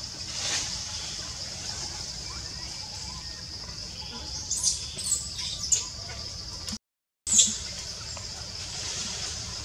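Forest ambience: a steady high-pitched drone under a low rumble. A few short high chirps come about halfway through. The sound cuts out for half a second, then one louder, sharper high chirp follows.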